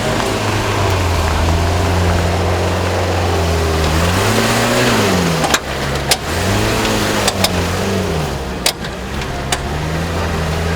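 Off-road competition 4x4's engine running hard, its revs rising and falling several times, with a handful of sharp knocks near the middle and toward the end.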